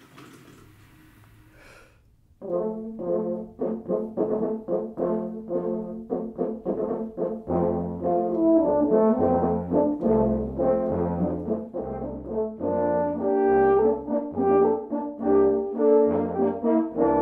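A quartet of French horns playing together after a short pause: short repeated notes over a held note come in about two seconds in, and low bass notes join a few seconds later.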